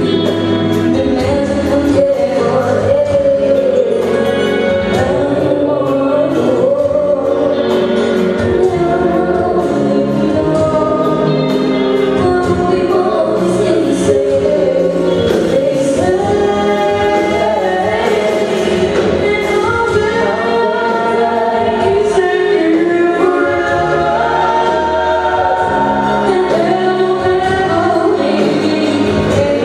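Live band playing a song with singing and a steady drum beat, loud and even throughout.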